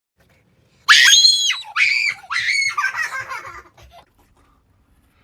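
A young person's high-pitched screams, three in quick succession starting about a second in, the last one trailing off; an excited shriek at the reveal of a random member card.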